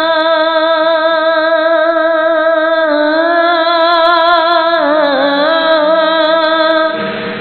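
A man's voice singing a gojol (Islamic devotional song), holding one long note with a slight vibrato. About three seconds in it steps down a little, then from about five seconds it slides down through a decorated melodic run before fading.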